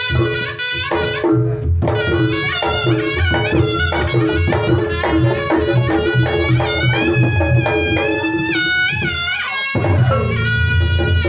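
Reog Ponorogo gamelan playing. A slompret shawm plays a reedy, bending, ornamented melody over a steady pattern of kendang drum strokes and a held gong-chime tone. The drums drop out for a moment near the end, then come back.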